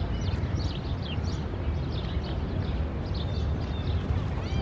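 Songbirds chirping busily in quick, high, falling notes over a steady low rumble.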